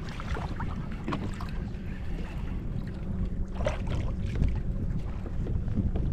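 Wind rumbling on the microphone and water lapping at a sit-on-top kayak's hull, with a few brief splashes as a small fish is reeled up to the surface, the clearest about three and a half seconds in.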